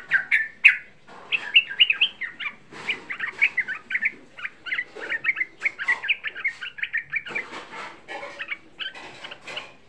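Yellow-vented bulbul (trucukan) singing: a short loud burst, then a long, fast run of chattering notes that goes on almost without a break.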